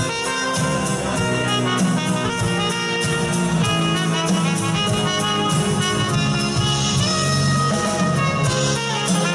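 Live band playing jazzy pop: a trumpet carries the melody over a drum kit and electric bass, with a steady beat.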